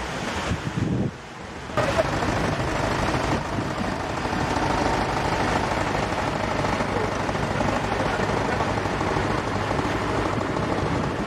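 Waves washing up a sandy beach with wind on the microphone, then from about two seconds in a tractor engine running steadily as it winches a beach-seine fishing net ashore by its rope.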